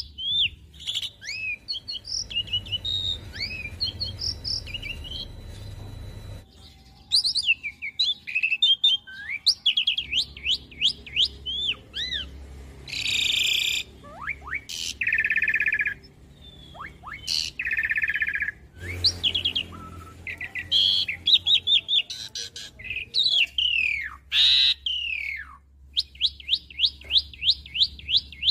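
Asian pied starling (jalak suren) singing a long, varied song. It mixes fast runs of repeated sharp notes, whistled slurs and harsh rattling phrases.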